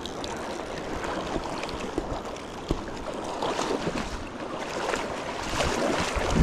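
Fast river current rushing over a shallow rocky bed, a steady wash of water noise with wind on the microphone. A few brief splashes and knocks break through, the loudest near the end.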